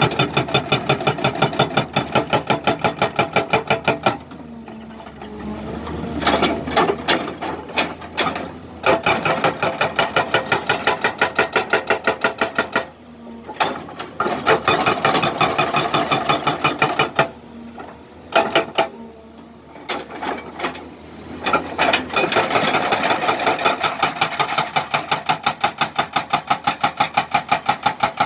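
Excavator-mounted hydraulic breaker hammering into rock in bursts of rapid blows, about seven a second, several times over. Between bursts the excavator's engine runs at a lower hum.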